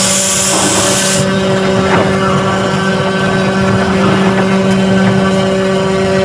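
4-axis CNC router's spindle running at steady speed with a constant whine while the bit carves a foam block turning on the rotary axis. A loud high hiss stops sharply about a second in.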